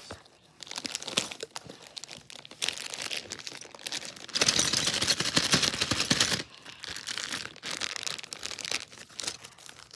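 Thin clear plastic bag crinkling and being tugged and torn at while being forced open, in scattered crackles with a louder, continuous stretch of crinkling from about four to six and a half seconds in.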